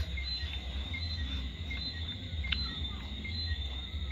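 Night insects, crickets, chirping in a steady high-pitched chorus with short repeated chirps, over a low steady hum.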